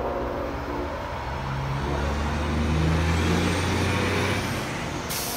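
A train's multi-chime air horn chord, which ends about half a second in. Then a deep engine drone swells and fades, and a sudden hiss starts near the end.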